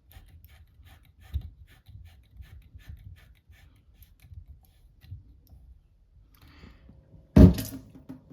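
Quiet clicks and knocks of hands working plumbing stopcocks behind a wooden access panel, closing off the hot-water supply, with one loud knock near the end.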